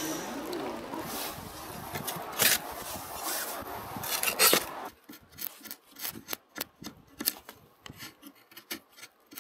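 A stick of fatwood being scraped and shaved with a knife to make fire-lighting shavings. There are two louder scrapes in the first half, then a run of short, irregular rasping strokes, several a second.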